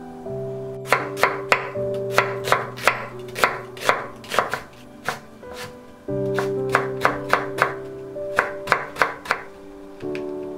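Chef's knife cutting a carrot into thin matchsticks on a wooden cutting board: sharp knocks about three a second, in two runs with a short pause near the middle. Soft piano background music plays underneath.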